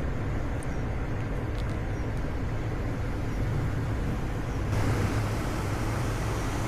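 Steady low vehicle rumble under a noisy hiss; about three-quarters of the way through, the hiss abruptly gets brighter and louder.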